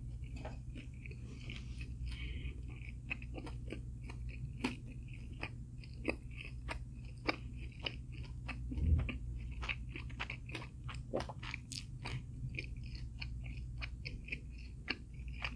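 Close-up chewing of crispy fried food, with many irregular crisp crunches and wet mouth clicks over a steady low hum. A dull thump about nine seconds in.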